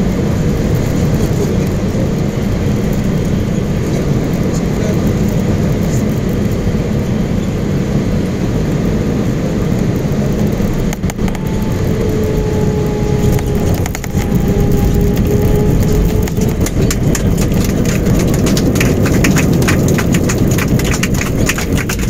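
Cabin noise of an Airbus A320-family airliner landing in strong gusty wind: a steady low rush of engines and airflow, a sharp thump at touchdown about halfway through, then louder engine noise with a slowly falling whine. Rapid rattling of the cabin follows as the jet rolls down the runway.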